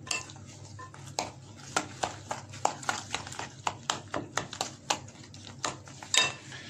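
Spoon stirring and mashing a wet batter of bread pieces and beaten eggs in a bowl, the spoon clicking and tapping against the bowl about three times a second.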